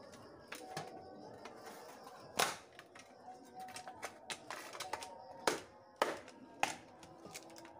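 Metal parts of a rice cooker being struck, pried and snipped apart with hand tools for scrap: irregular sharp clanks and clicks, the loudest about two and a half seconds in and three more in quick succession a little past halfway, some leaving a brief metallic ring.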